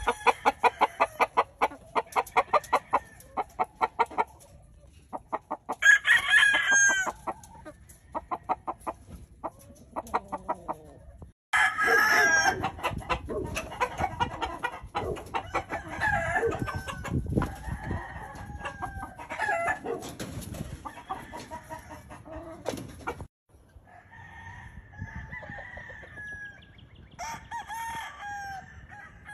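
Gamefowl roosters crowing several times, over fast runs of clucking. The sound cuts off abruptly twice, about a third of the way in and again past two-thirds.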